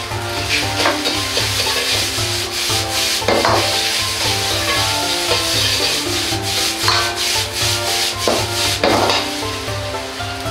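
Metal ladle scraping and tossing rice in a carbon-steel wok as it fries with a light sizzle, with several sharp knocks of the ladle against the wok. Background music plays throughout.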